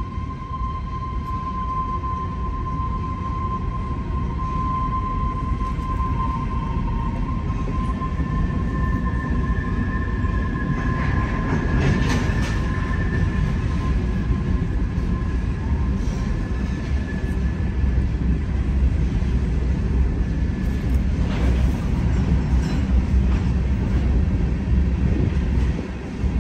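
Freight train of gondolas, tank cars and covered hoppers rolling steadily past, with a continuous rumble of steel wheels on rail. A thin, steady squeal comes from the wheels, one pitch over the first several seconds and a higher one through the middle. A few brief clanks sound around the middle and again later.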